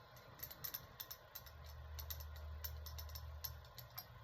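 Small metal ticks and clicks of a hex driver snugging the cylinder head screws on a nitro RC engine, with a faint low hum in the middle.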